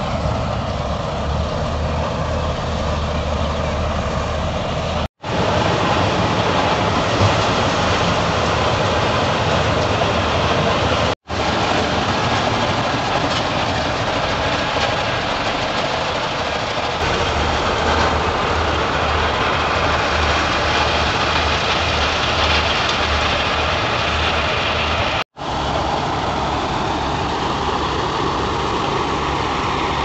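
Standard TSC-513 combine harvester running under load, a loud steady noise of engine and threshing machinery. The sound cuts out for a moment three times.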